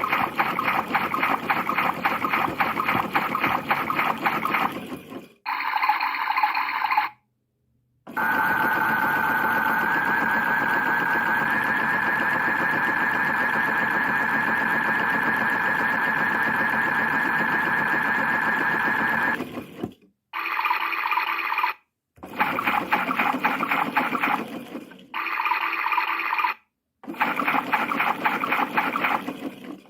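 Battery-powered PlayGo toy washing machine playing its electronic wash, rinse and spin sound effects through a small built-in speaker. The clips start and stop abruptly, and the longest is a steady tone that steps up in pitch twice near its start, lasting about eleven seconds in the middle.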